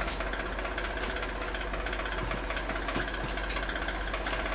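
A steady mechanical hum, with a few faint clicks.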